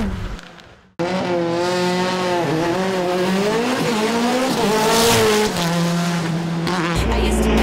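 Lancia Delta Evo hillclimb race car engine at full throttle, starting abruptly about a second in after a brief silence; its pitch climbs and drops back several times as it shifts up through the gears.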